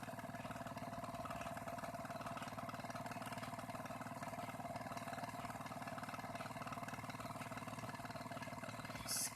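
Tornado II magnetic stirrer running at a steady speed, its motor giving an even hum. A short hiss comes near the end.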